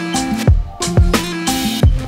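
Background music with a beat: deep bass drum hits that drop in pitch under plucked, sustained melody notes.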